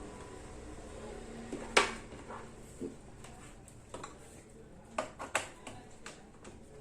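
Scattered light clicks and metallic clinks of tools and parts being handled on the workbench around an opened amplifier, the sharpest clink about two seconds in and a quick cluster of clicks around five seconds.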